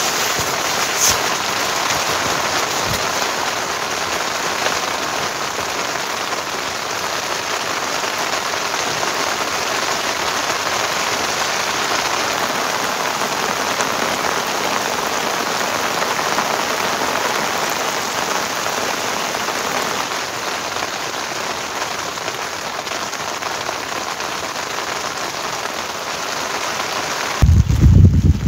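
Heavy rain falling steadily, an even dense hiss. Near the end a loud low rumble of wind on the microphone comes in.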